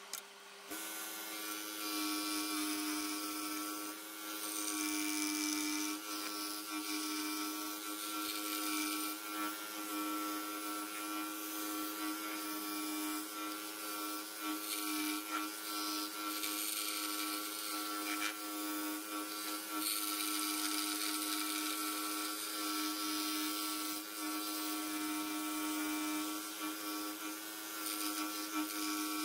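Pégas 21-inch scroll saw starting up about a second in, then running steadily as its fine fretsaw blade cuts a motif into a wooden tree slice: a steady motor hum with a rasp of the blade in the wood.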